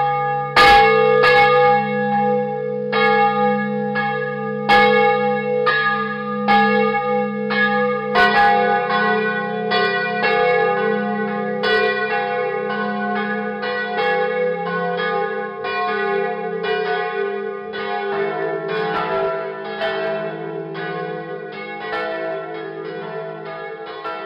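Church bells pealing: several bells struck in quick, uneven succession, about two strikes a second, their tones ringing on and overlapping. The mix of notes changes twice along the way.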